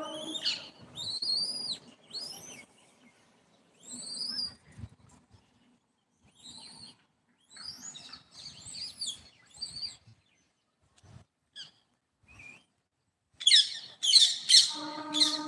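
Short, high-pitched squeaky chirps that rise and fall in pitch, coming in scattered groups with pauses between, then a quick burst of many chirps near the end.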